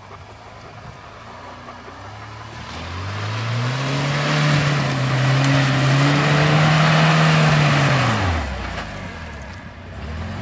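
UAZ Patriot SUV's engine revving up about two and a half seconds in, held at high revs for several seconds while the tyres churn through mud and grass with a loud hiss, then dropping back about eight seconds in.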